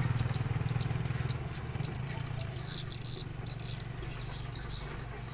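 MAN TGS 40.440 6x6 heavy-haul truck's diesel engine pulling away under load, its low drone fading over the first second or two and then carrying on faintly. Short high chirps sound through the middle.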